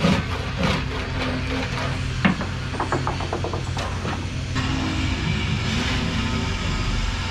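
Knocks and clicks of wooden parts being handled and fitted to a boat's wooden rail, with a quick run of about eight ratchet-like clicks around three seconds in.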